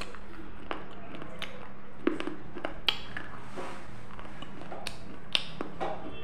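Close-miked mouth sounds of someone chewing baked clay: irregular sharp crunches and clicks, a few per second, over a steady low hum.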